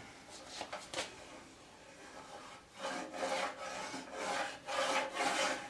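Hand strokes working a hardwood oak sled runner, scraping back and forth: a couple of faint strokes about a second in, then about five louder strokes in the last three seconds.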